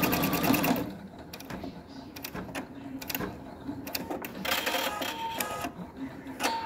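Embroidery machine stitching rapidly and evenly, stopping about a second in. Then come scattered mechanical clicks and brief motor whirs from the machine as it moves between stitching steps.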